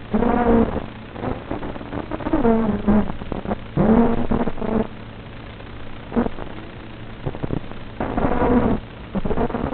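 FPV quadcopter's brushless motors whining in repeated throttle bursts, the pitch rising and falling with each punch, over a steady hum. The sound is narrow and muffled, as picked up on board and carried over an analog video link.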